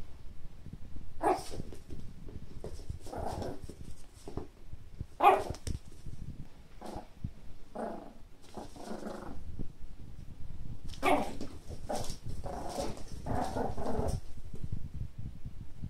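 Long-haired Chihuahua barking at a turtle: a dozen or so short, sharp barks in uneven bursts, the loudest about five seconds in.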